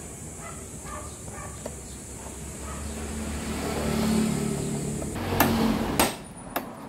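An engine hum that swells over a couple of seconds, then three sharp hammer blows on metal near the end, the loudest sounds here.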